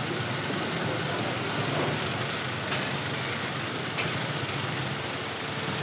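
Busy street traffic noise, with the engines of nearby vehicles idling steadily. There are two faint sharp clicks in the middle.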